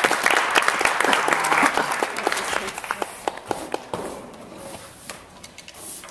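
Audience applauding, the clapping thinning out and dying away over about four seconds, with a few last scattered claps after.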